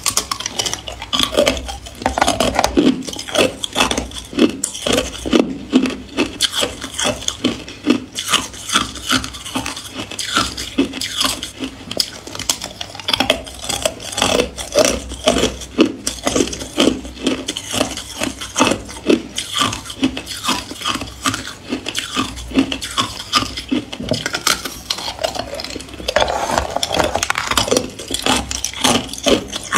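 A thin sheet of hard ice, frozen in an ice-cube-tray mould, being bitten and chewed: a dense, continuous run of sharp crunches and crackles as the ice breaks between the teeth, with a stronger burst of crunching near the end.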